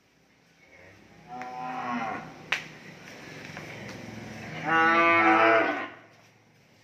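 Young cattle mooing twice: a shorter call about a second in, then a louder, longer one near the end. There is a single sharp click between the two calls.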